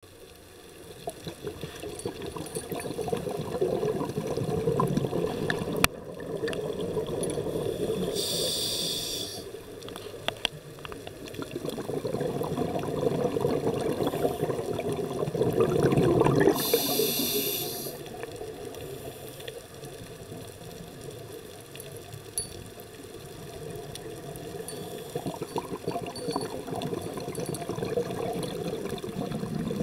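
Scuba regulator breathing heard underwater: the rumble of exhaled bubbles swells and fades over several seconds. It is broken twice by a short hiss of inhalation, about eight seconds in and again around sixteen seconds.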